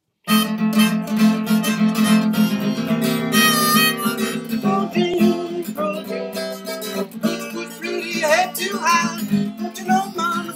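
Steel-string acoustic guitar played together with a harmonica held in a neck rack, an instrumental blues intro. The music starts abruptly just after the start, and near the end the harmonica's notes bend up and down in pitch.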